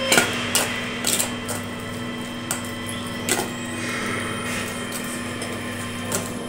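A metal spoon stirring a minced mutton-and-egg mixture in a stainless steel bowl, with scattered clicks of the spoon against the bowl, over a steady electrical hum.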